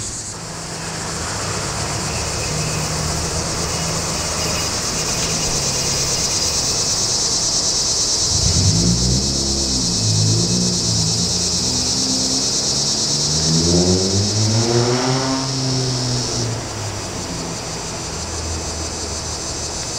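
Steady high-pitched trilling of an evening insect chorus. In the middle, a motor vehicle's engine rises and falls in pitch twice underneath it.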